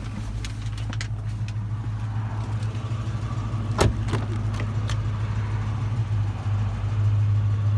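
A 2013 Dodge Charger R/T's 5.7-litre HEMI V8 idling steadily, with a sharp click of the rear door handle and latch about four seconds in.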